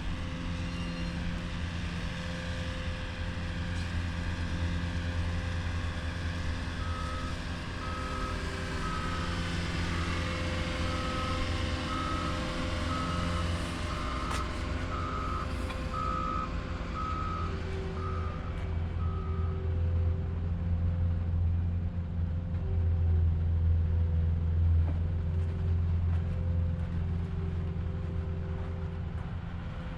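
A heavy construction vehicle's engine running steadily, with a reversing alarm beeping about once a second from roughly a quarter of the way in until about two-thirds through. The engine gets louder after the beeping stops.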